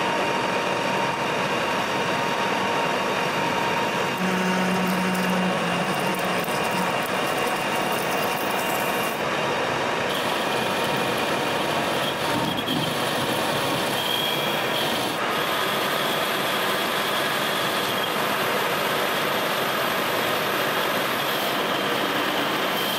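Metal lathe running while a tailstock drill drills into a metal block spinning in a four-jaw chuck, first a pilot hole and then a larger drill cutting chips. The machine noise is steady, with a few changes in tone along the way.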